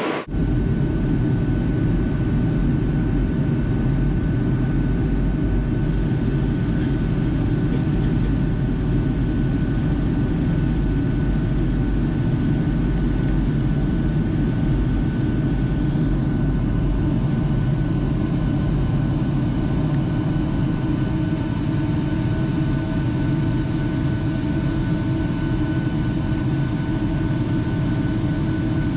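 Steady cabin noise of a jet airliner in flight, with the engines and rushing air making a loud, even low rumble and a few faint steady whines above it.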